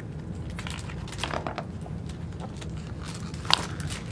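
Paper pages of a picture book being turned, rustling, with a sharp page snap about three and a half seconds in, over a steady low hum.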